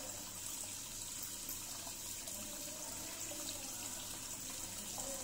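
Hang-on-back aquarium filter's return water trickling steadily into the tank, a faint even splashing hiss.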